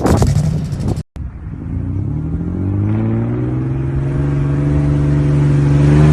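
About a second of wind noise on the microphone that cuts off, then a Toyota Land Cruiser pickup's engine revving up, its pitch climbing steadily over a couple of seconds and then held at high revs.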